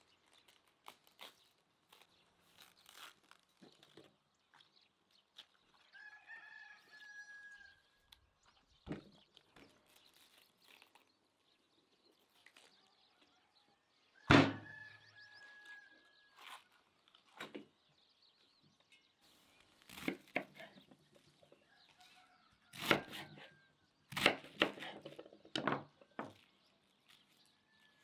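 Crisp cracks and crunches of white cabbage leaves being torn from the head on a wooden cutting board, with a loud thump about halfway through. A rooster crows in the background, once about six seconds in and again just after the thump.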